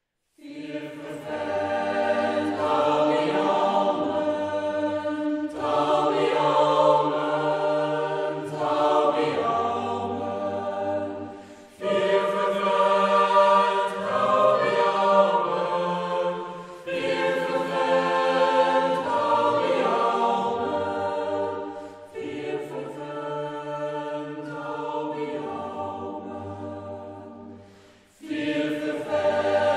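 A choir singing a slow song in long held phrases, starting about half a second in after silence, with short breaks between phrases.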